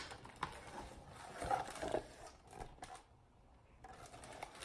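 Pages of a hardcover picture book being turned and handled: faint paper rustling with a few soft clicks and taps, and a sharper tap near the end.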